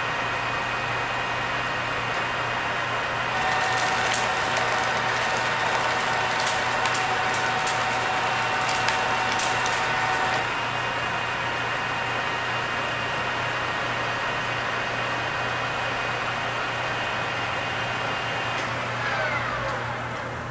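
Engine lathe running at 1,000 RPM with a steady motor and gear whine. From about three seconds in to about ten seconds, a carbide insert cuts 6061 aluminium 100 thou deep at 10 thou per rev, and a crackle of breaking C- and 6-shaped chips clicks into a plastic cup. Near the end the whine slides down in pitch as the spindle slows.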